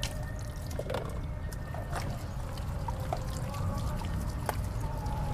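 Mortar and pestle mashing wet peanut-and-petis sauce for tahu tek, with soft wet squishing and scattered sharp clicks of a spoon and pestle against the mortar, over a steady low rumble.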